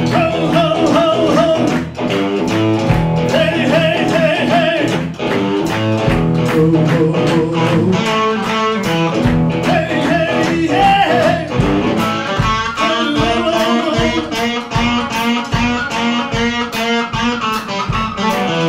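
Live blues-rock band playing: a driving electric guitar over drums that keep a steady beat, with the band moving into a busier passage about midway through.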